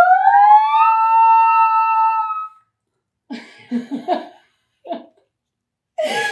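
Two women singing a vocal siren, their voices gliding upward from low to high pitch and holding the top note until about two seconds in, then stopping. Short bursts of laughter follow, with more laughter near the end.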